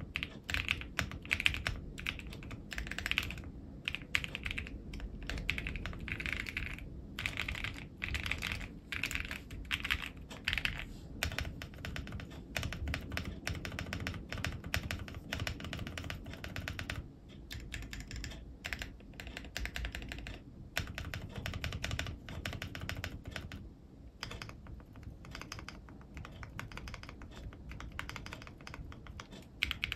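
Typing on an AKKO ACR75v2 mechanical keyboard with KAISYA switches: a dense, continuous stream of keystrokes broken by a few brief pauses.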